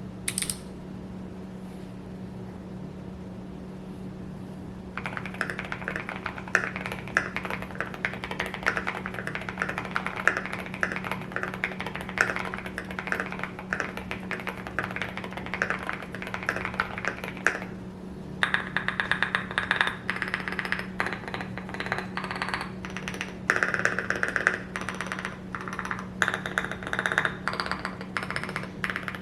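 Custom Leaf65 mechanical keyboard with linear switches and a brass weight, typed on in fast runs of keystrokes. The typing starts about five seconds in and stops briefly past the middle, over a steady low hum.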